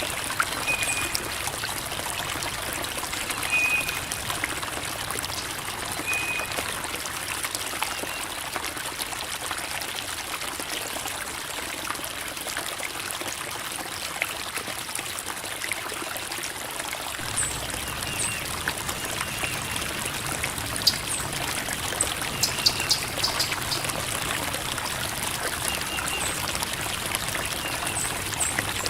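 Creek water running and trickling over rocks in a steady babble, with a few short high chirps now and then.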